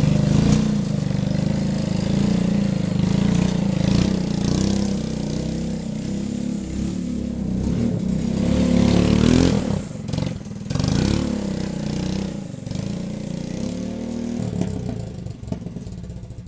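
Go-kart's single-cylinder 212cc Predator engine running as the kart drives, revving up and easing off a few times past the middle. The sound fades near the end as the kart pulls away.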